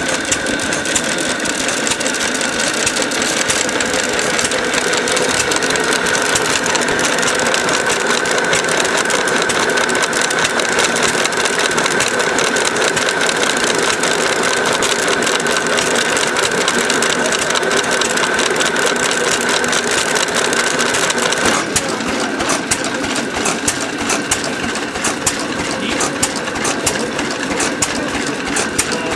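Lorenz single-cylinder stationary engine running steadily, belt-driving a grain mill that is crushing maize kernels into feed. A steady high tone runs over the engine's rapid beat until about three-quarters of the way through, then stops, leaving the engine's regular clatter.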